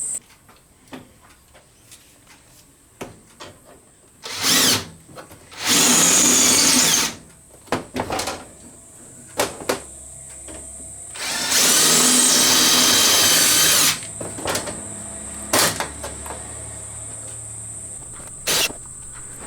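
Power drill drilling the heads off the rivets that hold a folding table's leg hoops on, in separate bursts: a short one, a longer one of about a second, then one of about two and a half seconds, with brief blips near the end. Small clicks and knocks of handling the metal table parts come between the bursts.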